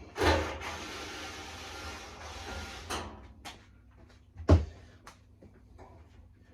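Tumble dryer parts being handled during repair: a sliding scrape for about two seconds, a click, then a sharp knock about four and a half seconds in, followed by small clicks.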